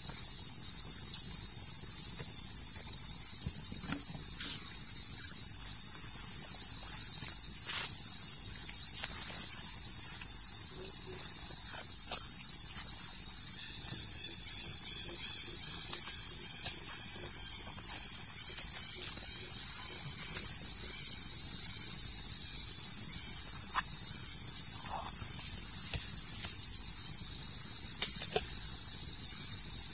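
A steady, high-pitched chorus of forest insects, unbroken throughout, with a few faint short clicks and rustles now and then.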